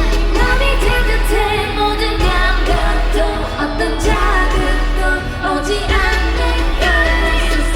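K-pop girl group singing live over a loud pop backing track with a heavy, steady bass.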